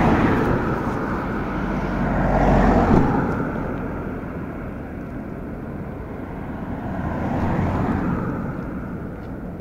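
Jet engine rumble from a Boeing B-52H bomber's eight Pratt & Whitney TF33 turbofans on approach, heard from a distance. The rumble swells twice and fades toward the end.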